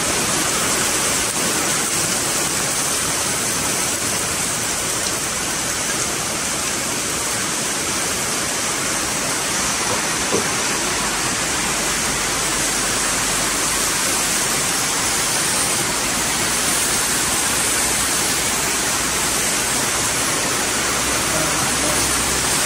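Chopped tomatoes sizzling steadily in a hot frying pan.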